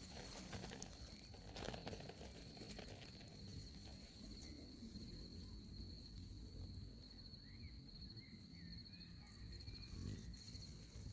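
An insect trilling steadily in one high, pulsing note, faint against the outdoor background. A few faint short chirps come in about two thirds of the way through.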